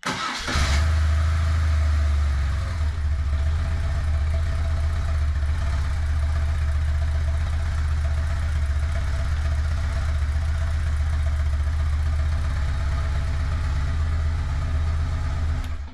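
BMW R1200C's boxer twin starting on the button and catching at once, then idling steadily, a little louder for the first couple of seconds, until it is switched off near the end. It starts and runs normally after the battery wiring for the USB charger was fitted.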